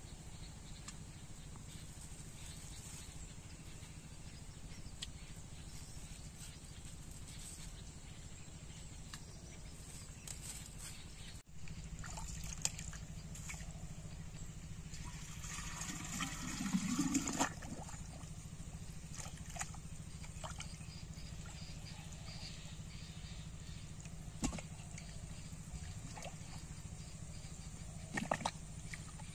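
Clay pots being lowered into shallow pond water: water splashing and gurgling for a couple of seconds in the middle, with a few small splashes and knocks near the end, over a steady outdoor background.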